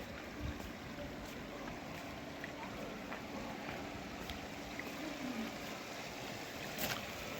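Steady rush of running water from the hot-spring baths, with a few faint clicks.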